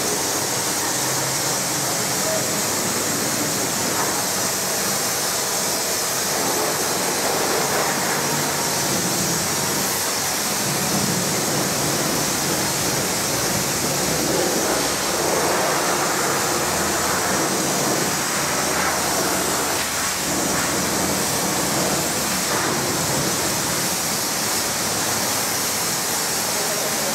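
Steady hiss of water spraying from a hose nozzle while a car is washed, with faint voices in the background.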